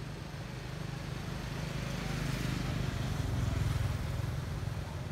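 A motor vehicle's engine passing, a low steady hum that swells to its loudest about three and a half seconds in and then eases off.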